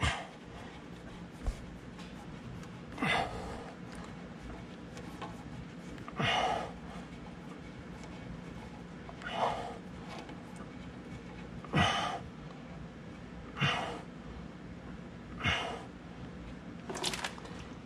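A man's short breaths, about seven of them, two to three seconds apart, over a faint steady hum.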